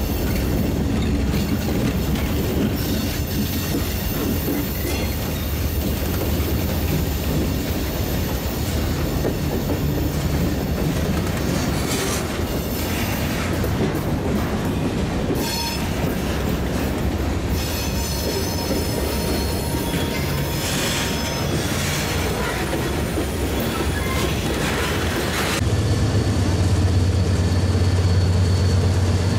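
Freight train rolling past close by, diesel locomotives and then loaded hopper cars, steel wheels running on the rails with high flange squeals at times in the middle. About 26 seconds in the sound changes abruptly to the low, steady drone of a Union Pacific diesel locomotive's engine crossing a steel bridge.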